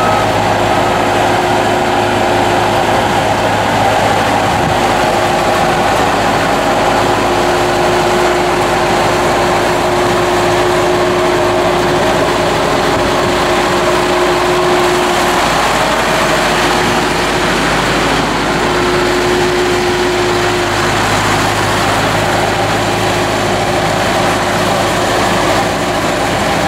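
2012 Bobcat T190 tracked skid loader's turbocharged four-cylinder Kubota diesel running steadily as the machine drives across gravel, with a whine that comes and goes over the engine.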